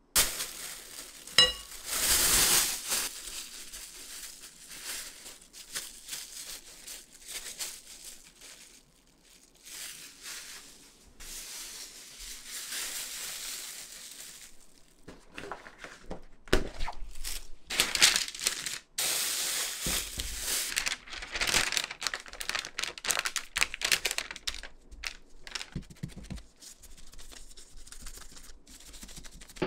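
Plastic wrap crinkling and rustling in irregular bursts as balls of cookie dough are handled in it. About a second and a half in, a glass mixing bowl gives a single short ringing clink.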